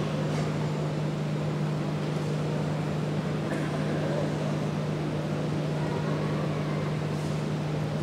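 Steady low hum over an even wash of background noise, with a few faint knocks.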